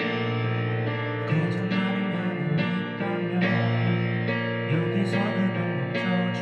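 Live rock band playing: sustained guitar chords over a moving bass line, with a few cymbal crashes.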